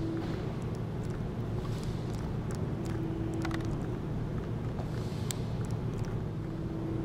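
Steady low mechanical rumble with a hum that fades in and out, and a few faint clicks.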